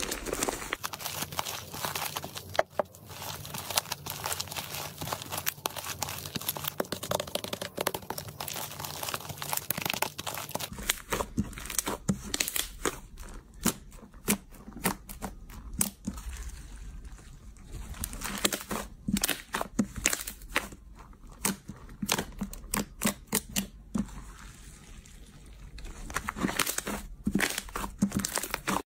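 Slime being squeezed and pressed by hand, with dense crackling and sticky clicks. After about 11 seconds it turns to sparser, sharper pops and snaps with short pauses between them.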